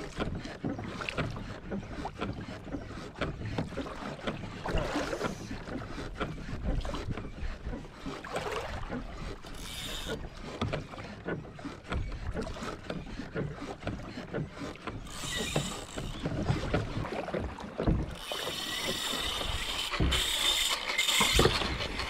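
Water slapping and sloshing against a plastic kayak hull, with small knocks and clicks from the boat and gear. About eighteen seconds in, a fishing reel's drag starts buzzing steadily as a hooked fish makes a fast run and strips line.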